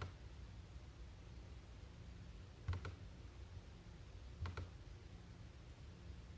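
Three soft clicks over a steady low hum: a single click at the start, then two double clicks a second and a half apart.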